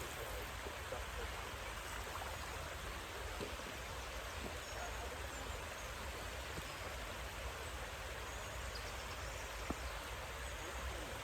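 Steady outdoor background noise with a low rumble, and a faint click near the end.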